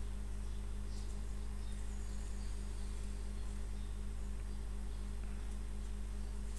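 Steady low hum with a few faint, light pencil scratches as a pencil is drawn along the edge of a board.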